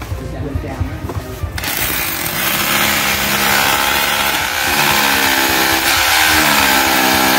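Dekton three-function rotary hammer drilling into a concrete floor. At first the hammer action gives fast, even knocks; from about a second and a half in, a loud, steady grinding noise takes over.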